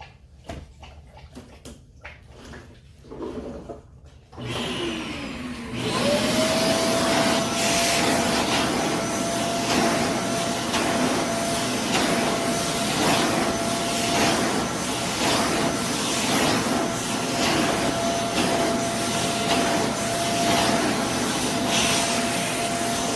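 Bissell Zing bagless canister vacuum cleaner switched on about four seconds in, winding up over a second or so and then running steadily: a loud suction noise with a steady whine over it. A few faint handling clicks come before it starts.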